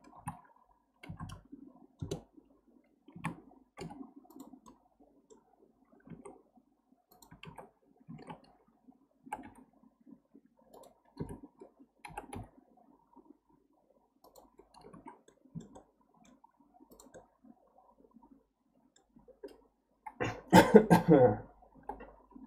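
Irregular computer keyboard and mouse clicks, one or two a second. Near the end a short, loud burst of coughing from a person who has choked on his saliva.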